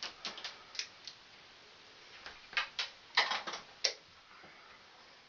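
A series of short, sharp clicks and taps from small hand tools and wire being handled at a metal electrical box: a few light ones in the first second, then a louder cluster about three to four seconds in.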